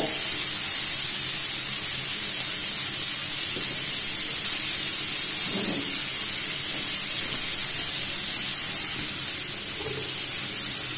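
Sliced vegetables sautéing in an oiled frying pan, sizzling with a steady hiss.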